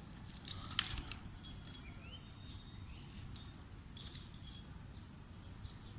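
Faint outdoor background: a low steady rumble with thin high chirps and whistling tones, and a few sharp clicks in the first second.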